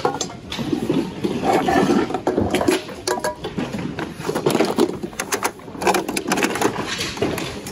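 Hands rummaging through a bin of mixed secondhand goods: repeated clatter, knocks and rustling of plastic packaging and hard objects being pushed aside.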